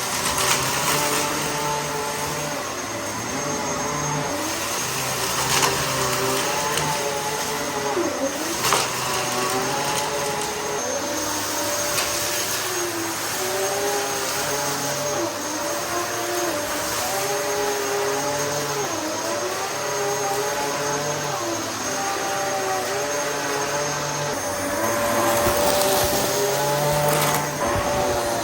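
Dyson DC14 upright vacuum cleaner running steadily, its motor tone wavering up and down every second or two, with a few brief clicks along the way.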